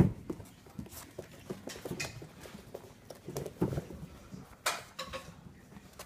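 Vizsla puppy scampering and pouncing on a carpeted floor, its paws and body making irregular soft thumps and scuffs as it plays with toys, with one louder thump at the start.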